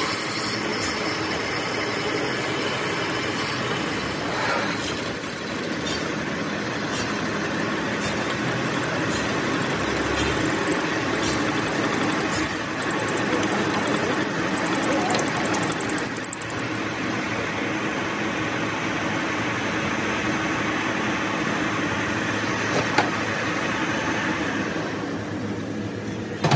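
Metal lathe running steadily while a twist drill bores into a spinning steel workpiece, a continuous machine hum mixed with the noise of the cut, with a faint high whine for a few seconds in the middle. Near the end the cutting noise drops away as the drill comes out of the bore, and the lathe keeps spinning.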